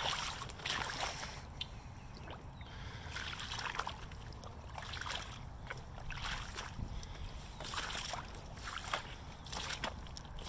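Rubber Hunter wellington boots squelching and splashing through ankle-deep wet mud and puddle water, one step after another.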